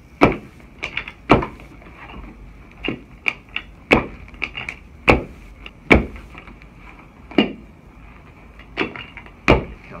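A string of over a dozen sharp, irregularly spaced knocks and clacks during chiropractic adjustments of the leg and ankle on a treatment table with a padded drop block.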